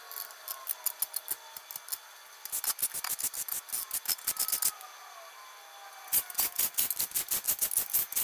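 Ratchet driving the bolts of an aluminium oil pan into an LS engine block. It clicks rapidly in two runs, the first about two and a half seconds in and the second near the end, after a few scattered metal clinks as the bolts are set in their holes.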